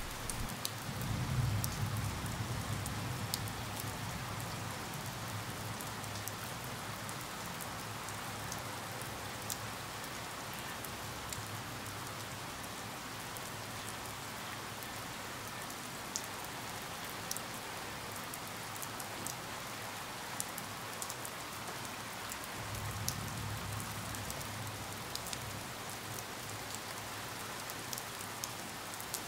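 Steady rain falling, with many separate drops clicking sharply close by. A low rumble sits underneath in the first few seconds and comes back for the last several seconds.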